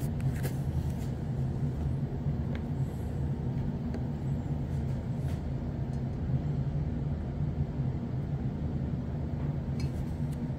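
Steady low machine hum, with a few faint light clicks of plastic coral tongs against a glass beaker as the coral frag is lifted out.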